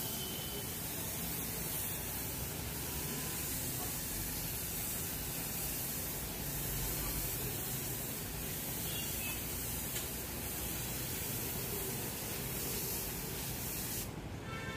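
Gravity-feed paint spray gun on an air hose, hissing steadily as it sprays the first coat of white paint onto a plastic car bumper. The hiss breaks off briefly near the end.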